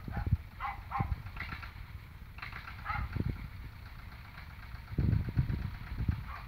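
Small tractor's engine running unevenly, with irregular low thumps that grow louder about five seconds in.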